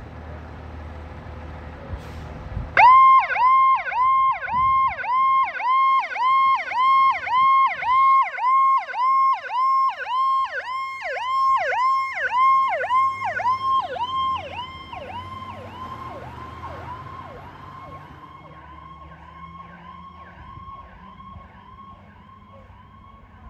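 Fire engine pulling away, its diesel engine rumbling low. About three seconds in, its electronic siren starts in a fast yelp, sweeping up and down about two and a half times a second. The siren is loud at first, then fades from about fourteen seconds on as the truck drives off, still yelping.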